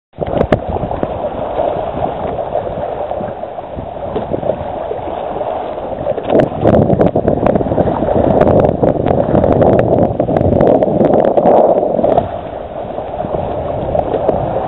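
Water rushing and splashing along the hull and floats of a Hobie Mirage Adventure Island trimaran under way in a chop. It grows louder and choppier from about six seconds in, then eases off near the end.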